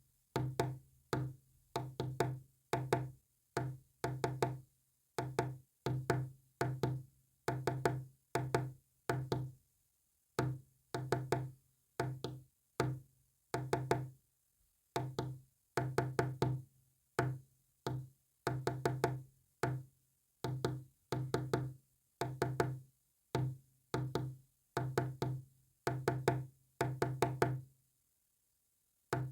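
Morse code sent as pulses of a low buzzing tone: a steady run of short and long elements with longer gaps between groups, each pulse starting with a click.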